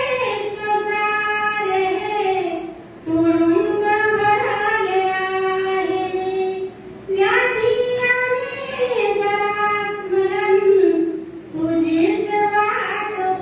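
A woman singing a Marathi Buddhist devotional song (Bhim geet) solo, drawing out long held notes in phrases of about four seconds, with brief breaths between them.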